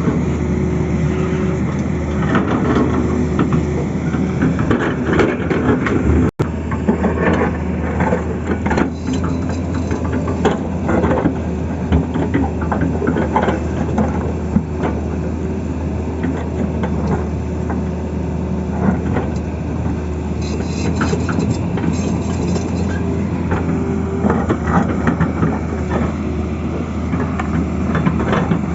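Tata Hitachi excavator's diesel engine running steadily at work, with frequent irregular knocks and scrapes over the drone.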